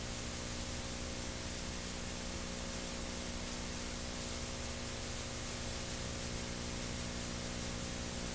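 Steady tape hiss with a low electrical hum underneath, the background noise of a digitized VHS tape.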